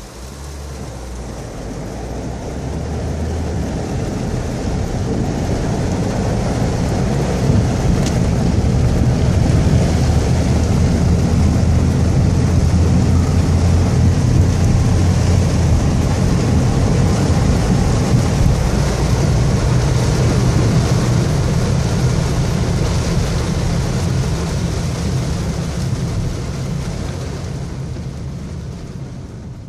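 Torrential rain and rushing floodwater heard from inside a car: a loud, steady roar with a deep rumble under it. It builds over the first few seconds and fades near the end.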